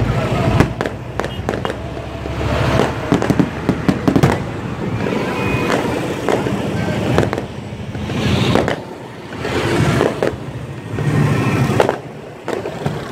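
Aerial fireworks bursting overhead: a continuous run of bangs and crackling, with denser swells of crackle about eight and eleven seconds in.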